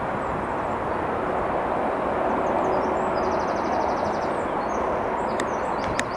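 Class 43 HST power car approaching on power, its diesel engine running under load as a steady, sustained noise that swells slightly midway, with a couple of sharp clicks near the end.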